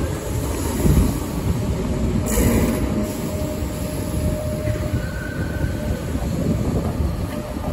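Class 313 electric multiple unit running along the rails as its last coach passes, a steady low rumble from wheels and running gear. A thin wheel squeal comes in about two seconds in and fades out before the five-second mark.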